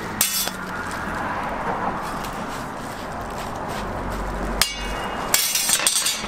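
Bread frying with a steady sizzle on a hot oiled flat-top steel griddle, with a metal spatula clanking and scraping against the steel: a couple of strikes right at the start, one more past the middle, and a quick cluster of strikes near the end.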